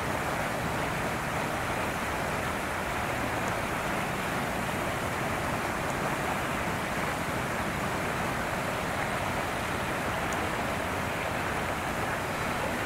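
Steady, even rushing background noise with no distinct events in it.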